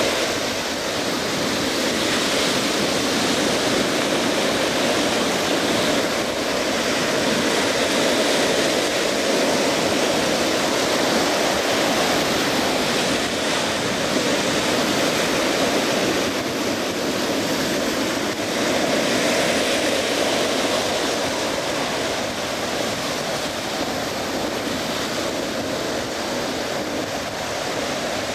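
Pacific Ocean surf washing onto the beach: a continuous rush of breaking waves that swells and eases gently every few seconds.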